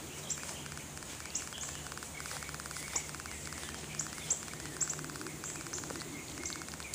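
Backyard ambience: short, high, falling bird chirps every second or so over a faint, rapidly pulsing insect trill and a low steady hum.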